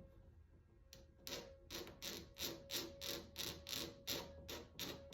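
Blade scraping over cured clear coat, shaving down the high spots of paint runs in quick short strokes, about three a second, starting about a second in.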